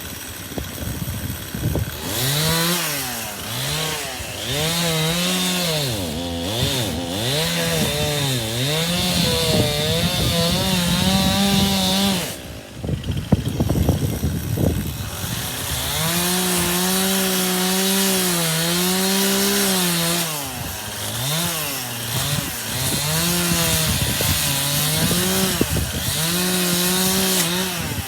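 Chainsaw cutting ash wood, its engine pitch repeatedly rising and sagging as the chain loads up in the cut. It comes up to speed about two seconds in, eases off briefly about halfway through, then bites back in and keeps cutting.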